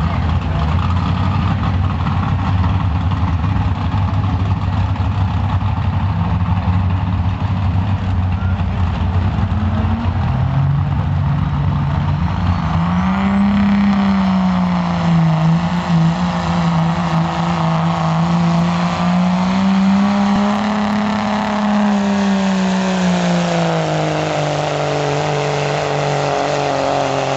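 Diesel pickup truck engine running steadily, then from about ten seconds in revving up and held at high revs under heavy load as it pulls a sled, its pitch rising and falling through the pull.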